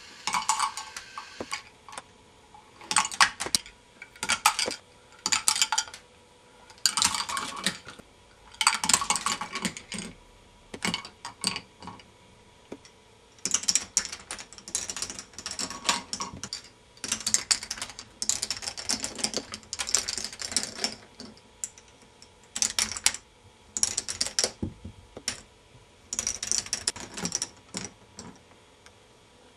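Plastic balls clattering and rattling through a K'nex ball machine's plastic track and parts, in repeated bursts of clicking separated by short pauses, over a faint steady hum.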